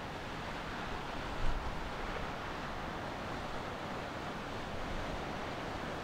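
Surf breaking on the shore reef and wind, a steady rushing wash, with one brief gust buffeting the microphone about a second and a half in.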